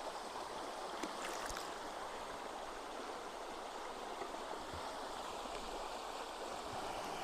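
Spring-fed creek water flowing steadily, with a few faint clicks about a second in.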